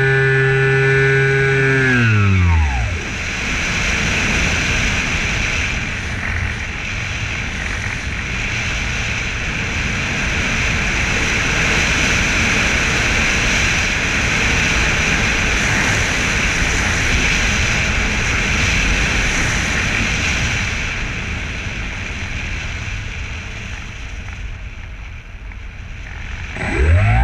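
Electric motor and propeller of a Super Sky Surfer RC plane winding down as the throttle is cut, the whine falling in pitch and dying out about two seconds in. Then a steady rush of wind over the onboard microphone as the plane glides, until near the end the motor spools back up with a rising whine.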